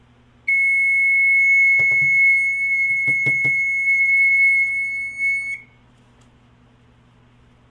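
General Home Products 1806 smoke alarm's piezo horn sounding one continuous high-pitched tone for about five seconds, then cutting off abruptly, with a few handling knocks partway through. It is going off at very little provocation: false alarm prone.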